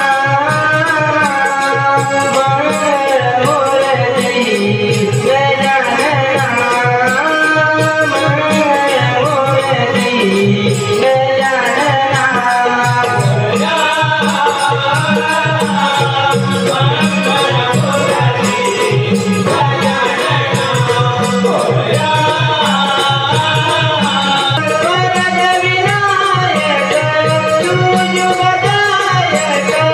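Live devotional song in praise of Ganesha from a Konkan Naman troupe: a wavering sung melody over a drum beating a steady rhythm and small cymbals clinking on the beat.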